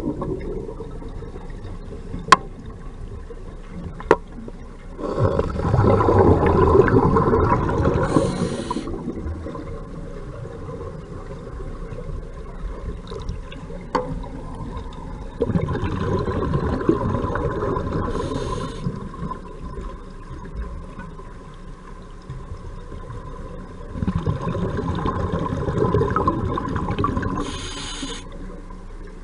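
Muffled water noise picked up by a submerged camera: three swells of rushing, sloshing sound lasting a few seconds each, with a few sharp clicks or knocks against the housing in between.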